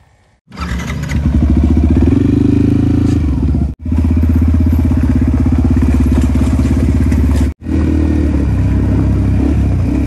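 Dirt bike engine running under way, its revs climbing a little about two seconds in and then holding steady. The sound breaks off abruptly for an instant twice.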